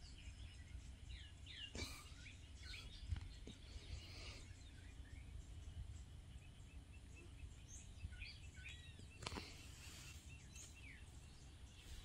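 Faint scattered bird chirps and calls over a low background rumble, with a couple of soft knocks.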